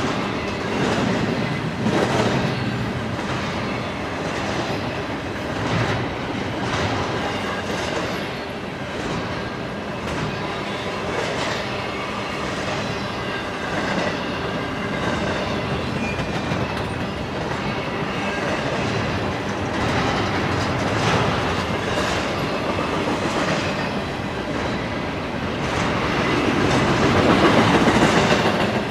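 Double-stack intermodal well cars loaded with containers rolling past: a steady rumble of steel wheels on rail with repeated clacks as the wheel trucks cross rail joints, and faint thin squealing from the wheels. It swells loudest near the end.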